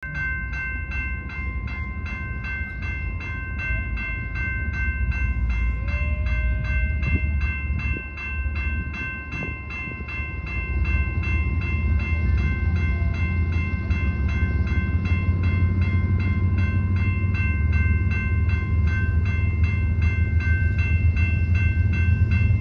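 Railroad crossing warning bell ringing steadily, about two to three strokes a second, while the crossing gates come down. A low rumble grows louder from about ten seconds in as the BNSF train approaches.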